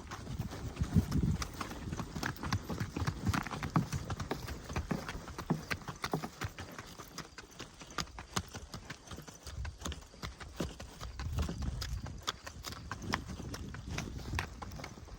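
Footfalls on a stony track: a run of irregular sharp clicks and knocks, with low rumbles now and then.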